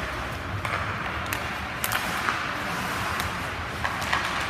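Ice hockey play: a steady hiss of skates and rink noise with scattered sharp clacks of sticks on the puck and ice, about half a dozen over a few seconds.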